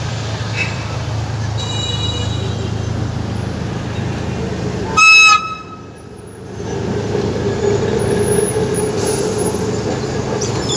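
Tram car rolling past at close range with a steady low rumble. About five seconds in, a short, loud, high-pitched horn toot sounds once, and a steady mid-pitched hum joins the rumble for the rest of the pass.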